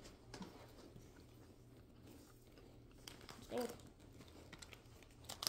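Faint chewing and small movement noises over a low room hum, with a short hum of a person's voice about three and a half seconds in and sharp rustling clicks near the end.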